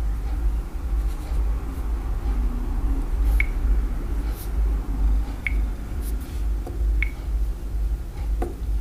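Short high clicks, about four of them spaced a second and a half to two seconds apart, as a finger taps the Samsung Wave S8500's touchscreen, over a steady low rumble.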